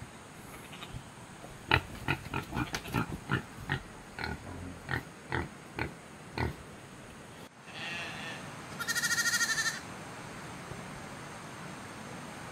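A pig grunting, a quick string of about a dozen short grunts. Then, past the middle, a lamb bleats once, a wavering cry of under two seconds.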